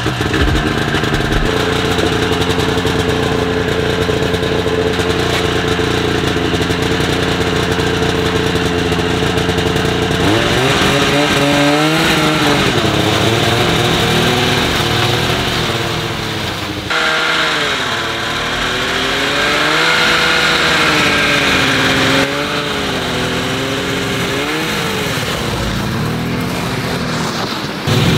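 Snowmobile engine idling steadily, then revving up and down with a rising and falling pitch as it pulls a loaded sled.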